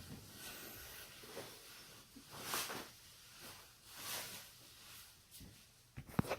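Soft rustling of body movement, then a quick cluster of sharp joint cracks near the end, from a neck or back being cracked.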